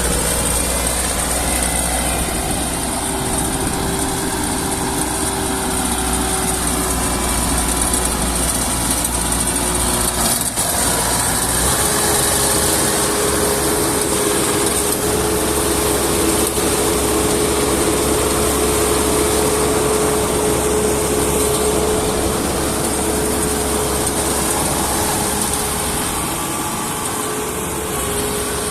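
Combine harvester engine and machinery running steadily under load, with a constant whine over the engine noise. About twelve seconds in the sound shifts: the whine steps up in pitch and the deep rumble drops away.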